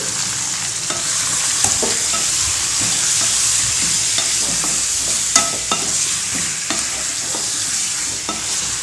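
Chicken pieces sizzling in hot oil in a metal kadai, a steady high hiss, with the spatula scraping and knocking against the pan many times as the chicken is stirred with salt and turmeric.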